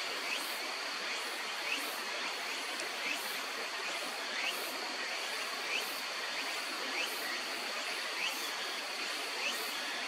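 Stream water running with a steady rush. Over it, a faint short rising chirp repeats about every second and a bit, with a thin steady high-pitched whine behind it.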